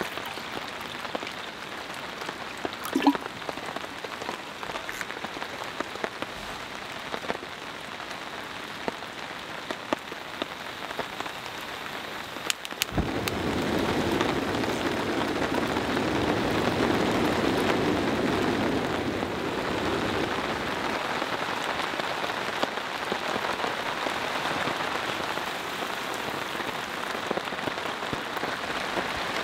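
Steady rain pattering on a tarp overhead, with scattered drops and a few light clicks. About thirteen seconds in it becomes louder and fuller.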